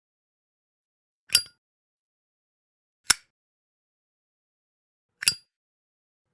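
Zippo lighter being handled: three separate sharp metallic clicks about two seconds apart, the first and last with a brief high ring from the steel lid and case.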